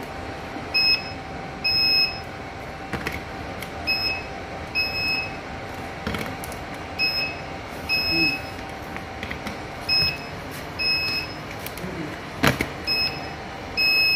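Handheld induction cap sealer being worked along plastic oil-bottle caps: two short high beeps about a second apart, repeating about every three seconds as each cap is sealed, over a steady hum. Occasional sharp knocks come as the sealer head is set down on the caps.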